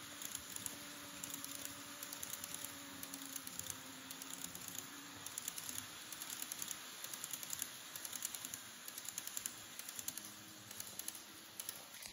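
Model 583 series train running along the layout's track, its wheels making a quick, uneven stream of light clicks over a faint low hum.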